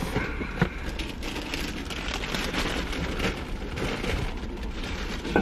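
Rain pattering steadily on the roof of a car, heard from inside the cabin as a dense crackle of fine ticks, with one sharper click near the end.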